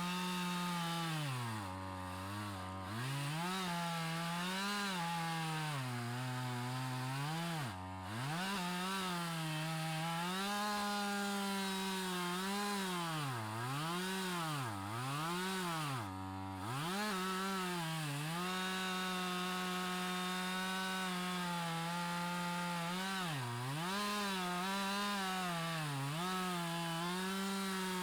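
Chainsaw fitted with a ripping chain, running in a chainsaw mill through a log. Its engine speed sags again and again and then recovers as the chain binds in the cut near the end of the log.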